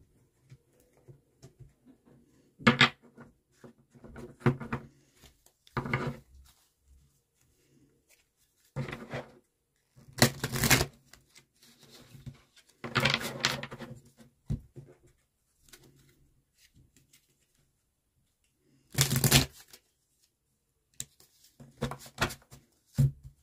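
A deck of oracle/tarot cards being shuffled and handled: a series of short shuffling and riffling bursts with pauses between, the loudest about nineteen seconds in.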